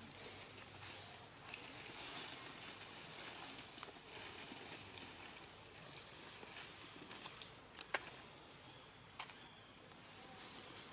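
Outdoor forest ambience. A bird repeats a short high chirp about every two seconds over a steady hiss, and a couple of sharp crackles of dry leaves come near the end.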